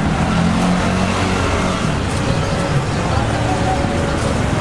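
Steady street noise: an engine running nearby with a low hum, and people talking in the background.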